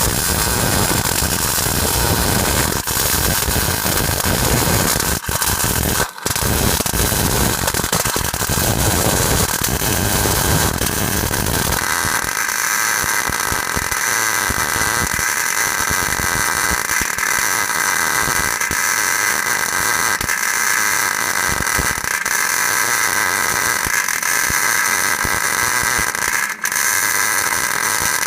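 Loud, continuous metalworking noise on a steel truck bed. About twelve seconds in it changes from a rough, heavy sound to a steadier, higher-pitched one, with a couple of brief breaks.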